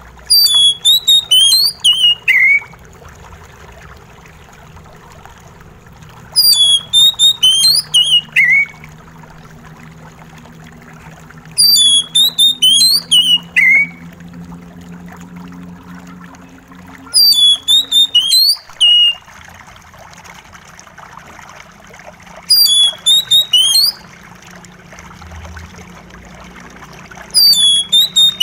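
Oriental magpie-robin singing a short phrase of quick, high whistled notes that steps down to a lower note at its end, repeated about every five and a half seconds. A steady trickle of running water plays underneath.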